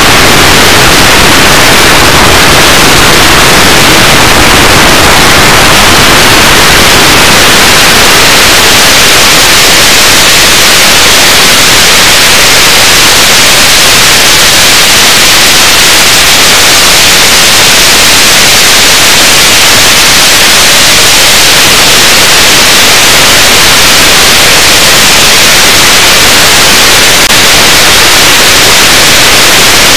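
Loud, steady hiss of static, like white noise, throughout. About ten seconds in it turns thinner and hissier, with no motor or propeller tone to be heard through it.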